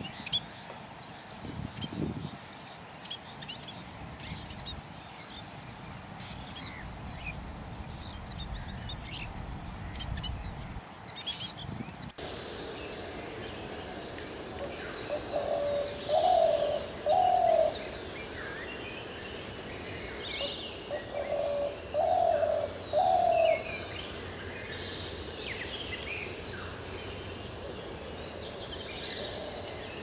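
For about the first twelve seconds, thin high chirps of scaly-breasted munias over a low rumble. Then a spotted dove cooing: two phrases of three coos, about five seconds apart, over the chirping of other small birds.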